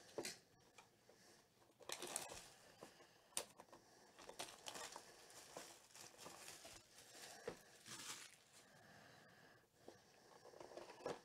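Faint crinkling and tearing of plastic shrink wrap being peeled off a sealed trading-card box, in short irregular rustles.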